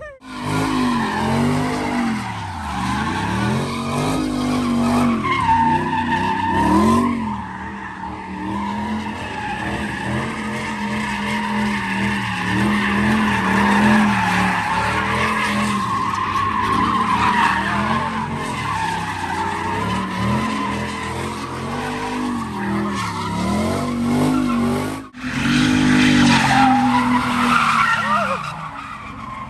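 Muscle sedans doing donuts: engines revving hard and dropping back over and over while the rear tyres screech in a continuous skid. There is a sudden cut about 25 seconds in, after which another car's burnout carries on.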